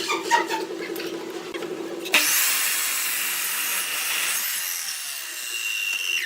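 Wood lathe running while a turning tool cuts the spinning wood. A motor hum with fast tool chatter and clicks gives way, about two seconds in, to an abrupt loud hissing cut with a steady high whine.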